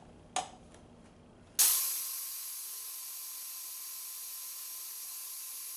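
Food processor motor starting suddenly about a second and a half in and running at an even pitch, a high whir with a hiss, as it blends a pepper purée. A faint click from the lid comes just before.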